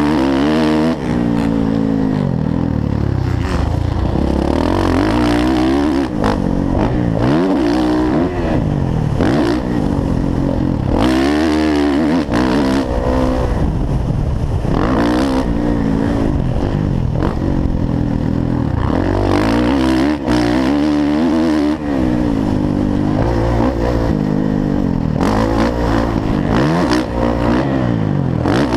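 Motocross dirt bike engine revving hard and easing off over and over, its pitch climbing and dropping every second or two as the rider works the throttle and gears, heard from a helmet-mounted camera.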